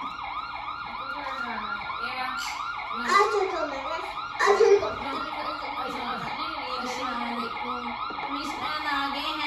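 Electronic toy police siren playing from the speaker of a children's ride-on police car: a fast, repeating rise-and-fall yelp about four cycles a second. Two brief louder sounds come in at about three and four and a half seconds.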